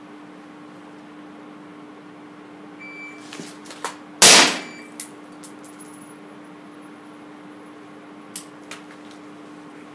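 Shot timer beeps once. About a second and a half later a suppressed carbine fires a single loud shot that rings out in the indoor range, followed by a few sharper clicks and clinks. A steady hum runs underneath.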